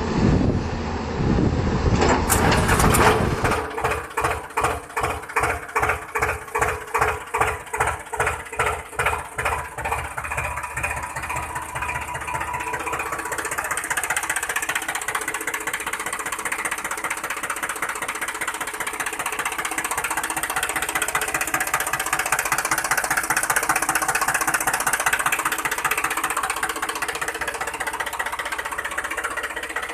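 Engine-like mechanical running sound that pulses a little under twice a second for several seconds, then settles into a steady run.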